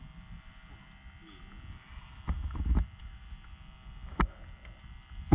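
Steady low rumble and hum on a small boat at sea, with wind on the microphone. A pair of low thumps comes about two and a half seconds in, and two sharp clicks follow near the end.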